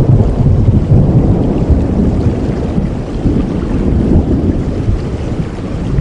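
Thunder rumbling low over heavy rain, loudest in the first couple of seconds and slowly dying away.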